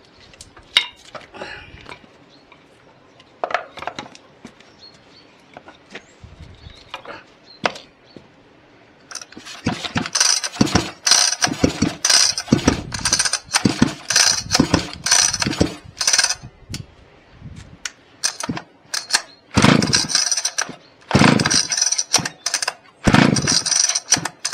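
Cold start of a Husqvarna 2100 two-stroke chainsaw by pull cord: a few knocks and clicks of handling first, then from about nine seconds in the engine fires and coughs in short, irregular bursts without settling into a steady run.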